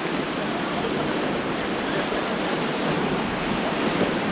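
Fast-flowing river water rushing over rapids, a steady, loud wash of water with no distinct splashes standing out.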